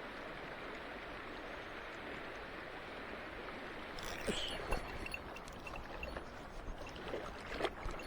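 Steady rush of a mountain stream. About halfway through, irregular close knocks and clicks begin over the water noise.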